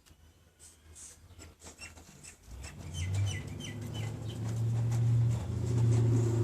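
A low buzzing snore that starts about two and a half seconds in and is drawn out, getting louder toward the end, with a few high squeaky chirps near its start.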